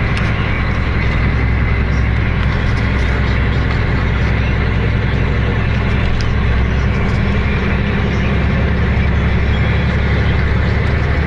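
A steady low engine drone and road noise, heard inside the cab of a vehicle driving along a snow-covered road.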